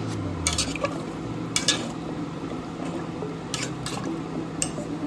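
Cookware handling at the stove: a metal utensil clinks against a pot about five times, with a few quick clicks near the middle and the end, over a steady low hum.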